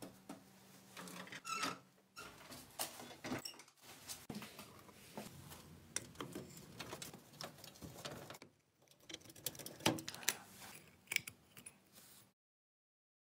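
Small metal clicks, taps and scrapes of hand-tool disassembly on a rusty pedal car, as a screwdriver works at the rear axle and wheel fittings and a hubcap is handled. The sound cuts off suddenly near the end.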